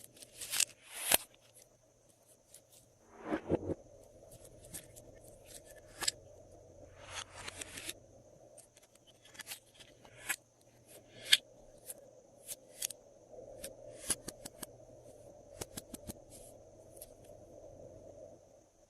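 Glossy slime being mixed and stretched by hand, giving irregular sharp sticky clicks and pops with a few longer noisy stretches.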